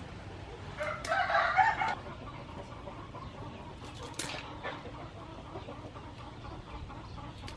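A chicken calls loudly for about a second, starting about a second in, with short broken clucking notes. A few sharp clicks follow later, as blue crabs are snipped with scissors in a metal bowl.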